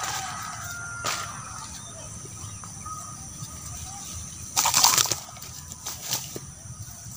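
A large snakehead fish flopping and thrashing in grass, heard as short bursts of rustling: one about a second in, the longest and loudest a little before five seconds in, and a few brief ones shortly after.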